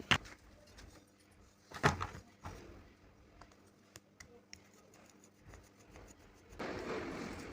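Metal angle-grinder parts and hand tools being handled: a sharp click at the start, a louder knock about two seconds in with a smaller one just after, and scattered faint ticks. A rustling noise starts near the end.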